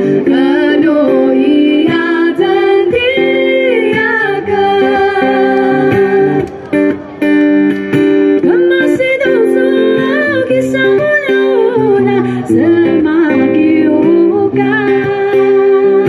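Live female singing accompanied by a plucked acoustic guitar, amplified through microphones.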